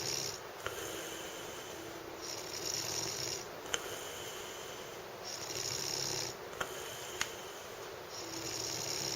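A man snoring heavily in his sleep, a snore about every three seconds, with a short sharp click between some of the breaths.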